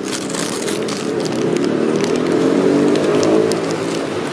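A motor vehicle's engine passing close by, growing louder and rising slightly in pitch to a peak about three seconds in, then dropping away.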